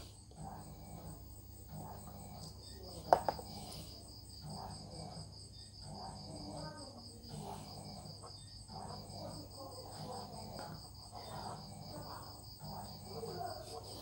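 Crickets chirping in a steady, high, pulsing trill, under a faint low murmur, with one sharp click about three seconds in.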